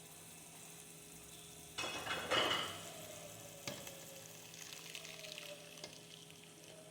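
Blended milk-and-flour mixture poured into a hot pan of shrimp and coconut milk, sizzling loudly for about a second before dying down. A single knock follows, then lighter stirring sounds in the pan.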